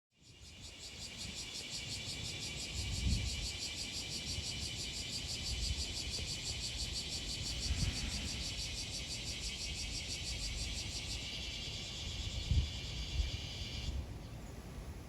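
Insects calling in a steady, rapidly pulsing high-pitched drone that cuts off suddenly near the end, over a low rumble of wind on the microphone.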